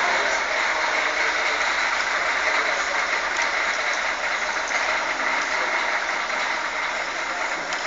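Engine of a vintage bus running steadily while the bus creeps forward and turns at walking pace.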